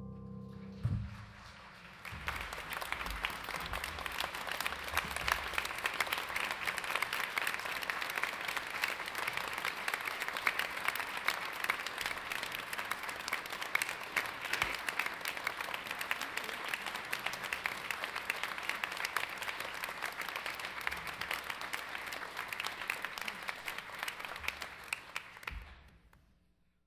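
A piano chord dies away about a second in, then a congregation applauds steadily, the clapping fading out near the end.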